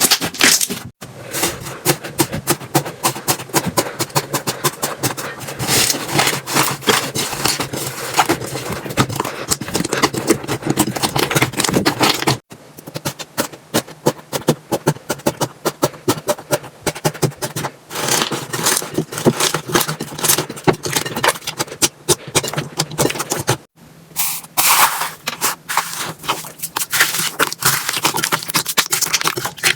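Slime squeezed and pressed by hands, giving dense, rapid crackling and clicking pops. The texture changes abruptly a few times as one clip cuts to the next.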